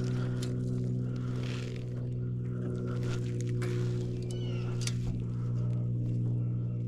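Electric trolling motor running with a steady, even hum of several stacked tones, with a few faint clicks over it.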